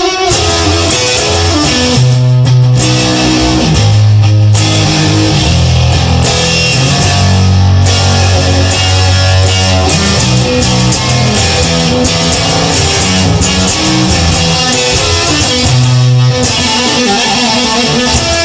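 Rock music: a guitar-led instrumental with electric guitar and bass guitar playing.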